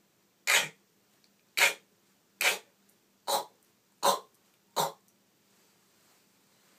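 Beatbox mouth percussion: six short, sharp hits about a second apart, coming slightly faster toward the end.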